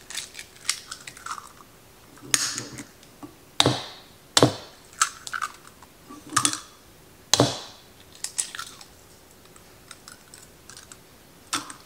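Eggs cracked one after another on the rim of a plastic mixing bowl: a series of sharp taps and shell crackles, with pauses between them.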